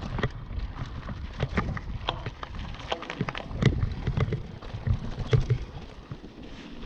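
Mountain bike riding over a dry dirt trail: tyres crunching on loose grit and stones, with the bike rattling in irregular clicks and knocks over a low rumble of air on the microphone.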